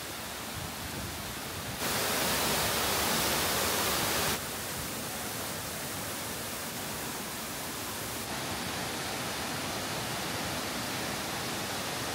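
Waterfall's rushing water, a steady even roar. It jumps suddenly louder about two seconds in and drops back just as suddenly about two and a half seconds later.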